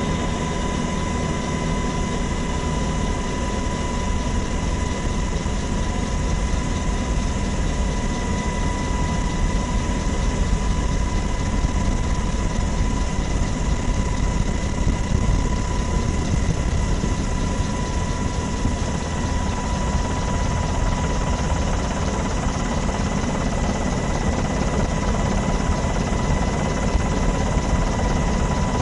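Steady helicopter noise heard from aboard: a low rotor and engine rumble with a constant high whine, unchanging throughout.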